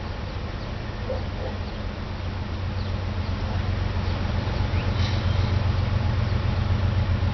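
Diesel locomotive approaching: a steady low engine rumble that grows gradually louder, with faint bird chirps over it.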